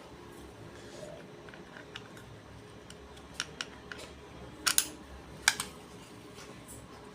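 Several small, sharp clicks of the hair trimmer's blade plate and its metal and plastic parts being handled and shifted into alignment by hand, the loudest pair about two-thirds of the way through.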